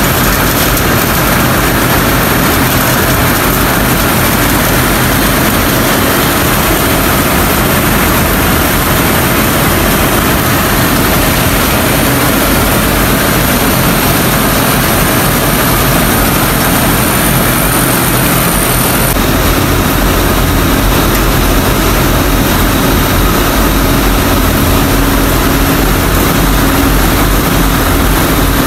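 Cotton-processing machinery running: a loud, steady mechanical din from the roller machine and its blower as raw cotton is fed through. About two-thirds of the way through the noise turns to a deeper rumble.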